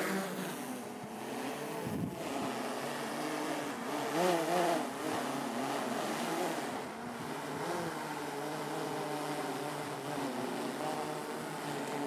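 Propellers of DJI quadcopter drones, a Mavic 3 and an Air 2S, running with a steady buzzing hum, the pitch wavering up and down briefly about four seconds in.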